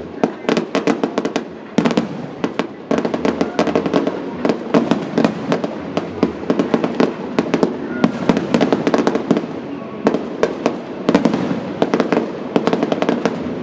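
Fireworks going off in dense, irregular volleys of sharp bangs and crackles, several a second.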